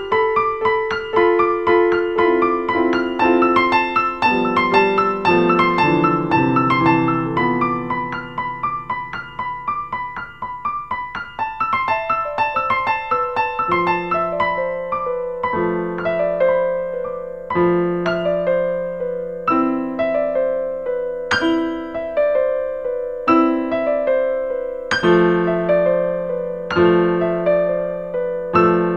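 Background piano music: quick runs of notes in the first half, then slow repeated chords about every two seconds over a low bass note.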